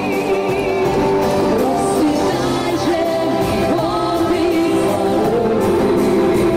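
Music with a singing voice carrying a melody over accompaniment, steady in level throughout.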